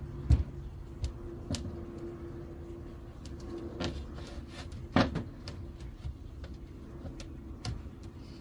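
A handful of sharp knocks and taps at irregular intervals, the loudest near the start and about five seconds in, over a steady low hum.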